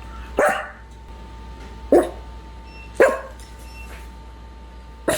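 A dog barking: four short single barks, a second or two apart.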